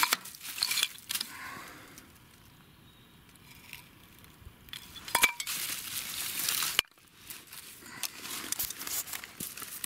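Light metallic clinks and rustling as corroded metal aircraft wreckage parts are handled among dry leaves and grass, with a sharp click about five seconds in and a stretch of crackling that cuts off suddenly near seven seconds.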